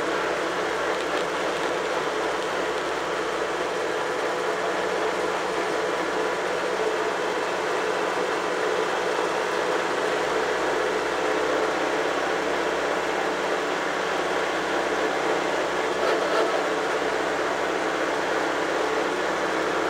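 Vintage tractor engine running steadily at road speed, heard on board close to the engine.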